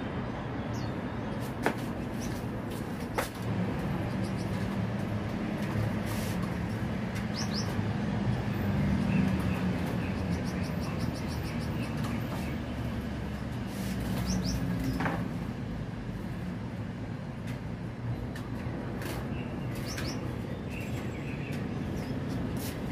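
Caged pet birds chirping now and then over a steady low rumble of traffic, with a few sharp clicks and knocks from the cages being handled.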